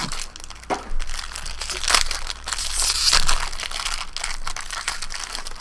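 Shiny silver foil wrapping crinkling as hands unwrap it from a trading card. The crackles come in irregular handfuls and are loudest about two and three seconds in.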